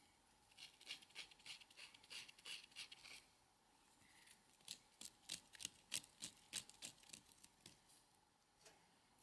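Small knife whittling shavings off a thin wooden stick for kindling: a quick run of short scraping strokes in the first few seconds, then sharper, spaced clicks in the second half.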